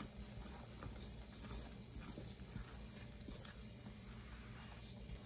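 Wooden spoon stirring flour into water and oil in a stainless steel bowl: faint, soft scraping and patting of the wet flour mixture.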